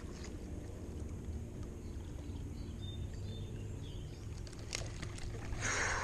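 Steady low hum and rumble of a distant motor under open-air noise, with a short rushing burst near the end.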